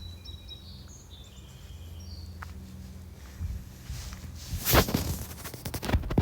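Birds chirping in short high calls over a steady low rumble outdoors. About two-thirds of the way through, a run of loud sharp crackles and knocks begins and becomes the loudest sound.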